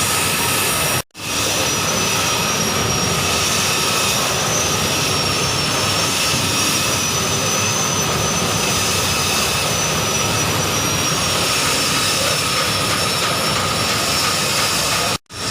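Mechanical grain drying machine running: a steady, loud rush of air with a thin high whine over it. The sound drops out abruptly for a moment about a second in and again near the end.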